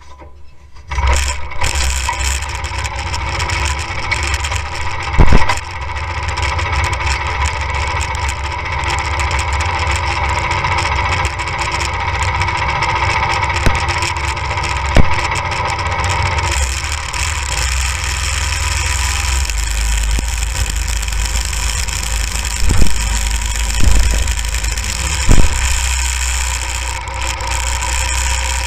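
A go-kart's small engine starts about a second in and then runs steadily, broken by several sharp loud knocks.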